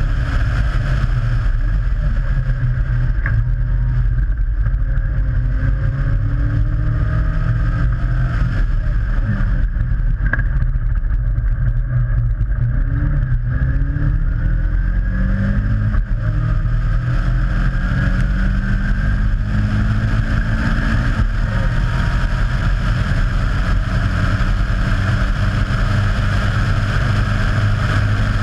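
Caterham Seven's Ford Sigma four-cylinder engine running hard under racing load, its pitch climbing and then dropping back at each upshift, with heavy wind buffeting on the microphone of the open car.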